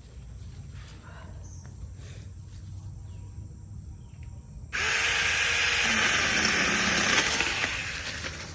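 A SeeSii 6-inch cordless mini chainsaw starts suddenly about halfway in and runs loud for about three seconds, its motor pitch sagging lower as it cuts, then dies away near the end.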